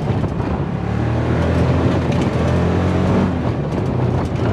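Side-by-side UTV engine running under way, heard from inside the open cab as a steady low hum, with wind on the microphone.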